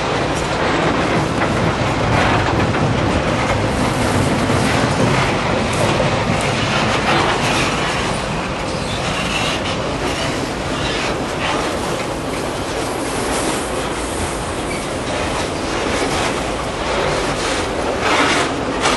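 Freight wagons of a passing train, first loaded log wagons and then coal hoppers, rolling by close at hand with a steady rumble and the wheels clattering over the rails.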